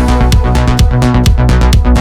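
Electronic dance music with a steady, fast beat and a deep bass line.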